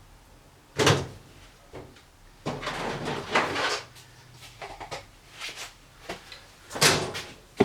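Workshop items being handled: a sharp knock about a second in, a longer stretch of rummaging and rattling around three seconds, small clicks, and another sharp knock near the end.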